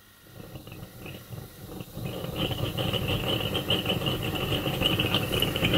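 Multi-tube propane gas burner for a 5-inch gauge miniature steam locomotive, burning with a blue flame. Its rushing sound of flame and gas grows louder over the first two seconds as the gas valve is opened further, then holds steady.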